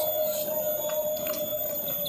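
A steady, unbroken mid-pitched tone, with a few faint clicks of eating over it.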